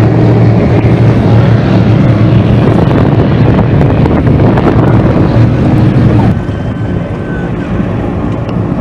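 Offshore powerboat engines running loud and steady at high speed as the boats race past, with wind buffeting the microphone. About two-thirds of the way through, the sound cuts to a quieter, steadier boat engine.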